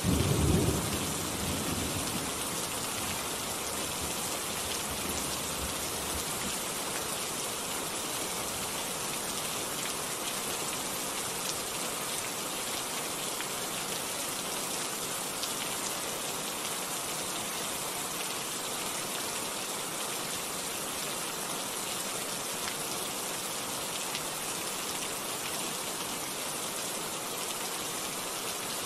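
Steady rain falling, with a short low rumble of thunder right at the start that fades within about two seconds.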